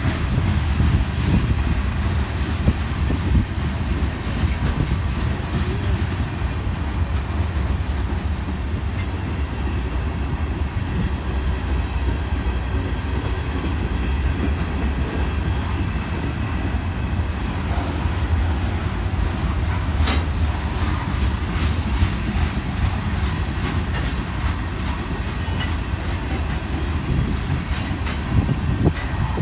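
A train rolling past: a steady low rumble with wheels clacking rhythmically over rail joints, the clacks coming thicker and sharper in the last third.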